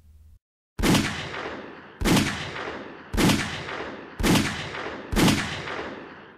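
Five 9mm pistol shots from a micro pistol with a 3-inch barrel, firing Federal HST 147-grain standard-pressure hollow points. The shots come about a second apart, and each is followed by a trailing echo that dies away.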